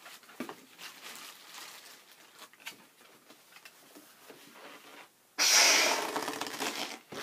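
Faint rustling for about five seconds, then a person blowing hard into a red latex heart balloon by mouth: one long, loud rushing breath of under two seconds that stops abruptly, inflating the balloon most of the way.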